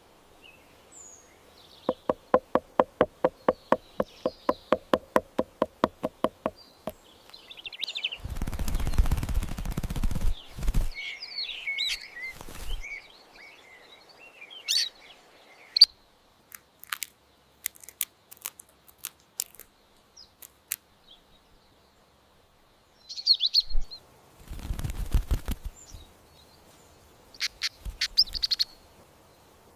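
Birds chirping and calling, with short high chirps scattered throughout. Early on there is a rapid pulsed call of about five notes a second. Two loud bursts of rough noise come about a third of the way in and again near the end.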